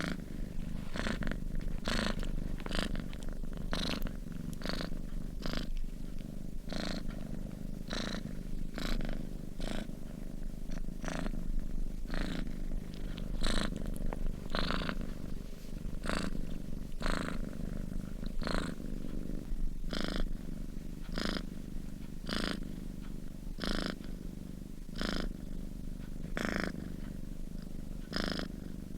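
A sleeping domestic cat purring steadily: a continuous low rumble with a short breathy rasp repeating about once a second as it breathes in and out.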